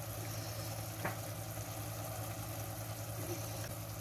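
Tomato-onion masala simmering and sizzling gently in a steel pot, over a steady low mechanical hum. There is one light click about a second in.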